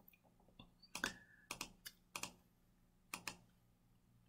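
Faint clicking of a computer mouse and keyboard: about seven short, sharp clicks, several in quick pairs.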